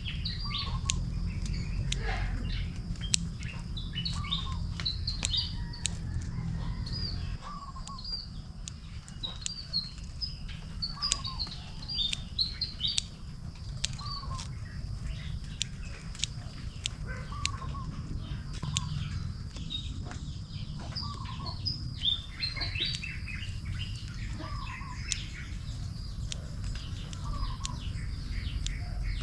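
Several birds chirping and singing, with one short falling call repeated every couple of seconds, over a low rumble that eases about seven seconds in. Scattered sharp clicks throughout.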